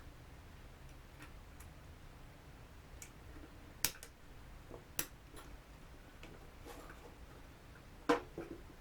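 Scattered light clicks and taps of small drone parts and hand tools being handled during reassembly, the sharpest about four, five and eight seconds in, over a quiet room background.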